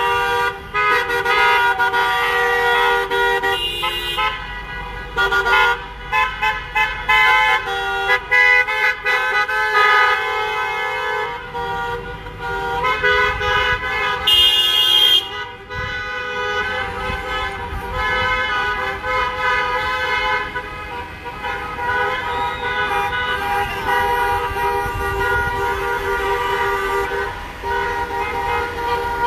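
Many car horns honking at once, long overlapping blasts of different pitches that keep up without a break, with a higher-pitched horn joining briefly about halfway through.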